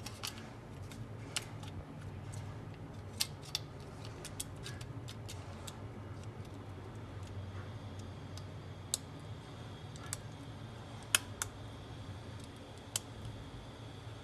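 Scattered sharp plastic clicks and taps as a smartphone's circuit board and plastic housing are handled and pressed together, the loudest about eleven seconds in, over a low steady hum.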